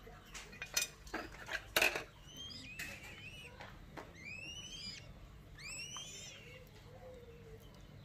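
A knife blade chopping fish against a wooden block in a quick string of sharp knocks, then a downy raptor chick calling in a series of high, curving cheeps, begging as it is hand-fed.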